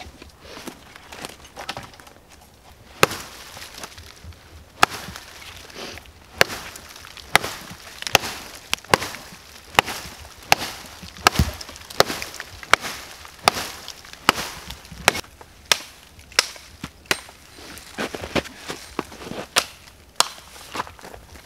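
Bearded (skeggox) axe chopping green conifer limbs: a steady series of sharp strikes into wood, about one or two a second, starting about three seconds in.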